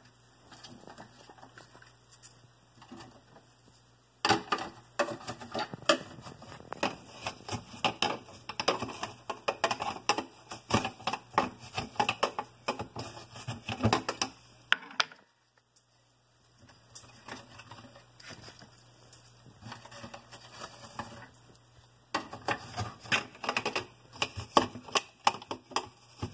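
Plastic infuser pitcher being handled: bursts of rapid clicking and knocking as thin apple slices are pressed down into its infuser chamber. The clicking runs from about four seconds in until around fifteen seconds, eases off, and starts again near the end.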